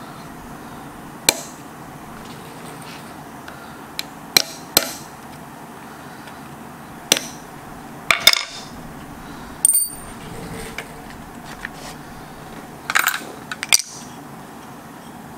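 Irregular sharp clicks and clinks of small metal tools and wooden knife-handle scales handled and set down on a steel workbench. One clink about ten seconds in gives a short high metallic ring.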